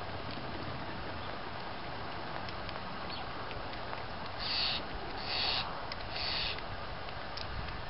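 Male common pheasant pecking seed off gravel, with light scattered beak taps. About halfway through, three short harsh sounds of about half a second each come in quick succession, louder than anything else.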